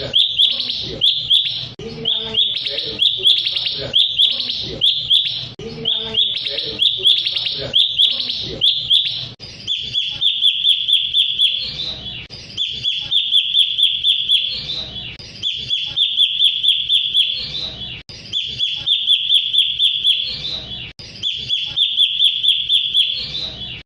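Cucak cungkok songbird song played as a lure call: repeated phrases of rapid, even chattering notes, each phrase a second or two long with short pauses between, cleaner and more regular after about ten seconds.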